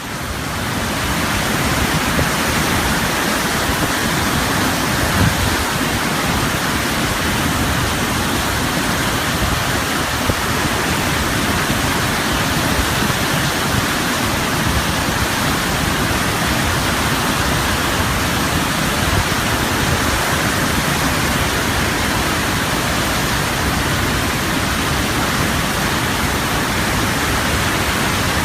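Ocean waves breaking in rapid succession, merging into a steady rushing roar with no lulls between waves.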